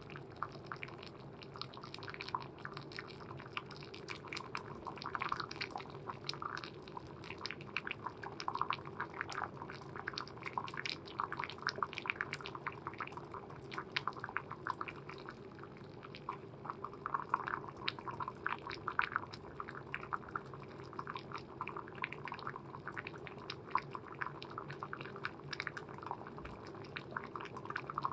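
Water at a rolling boil in a steel pot: steady bubbling made of many small, quick pops, over a low steady hum.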